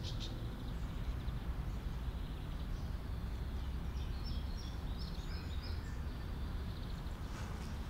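Outdoor park ambience: a steady low rumble, with small birds chirping a few times around the middle.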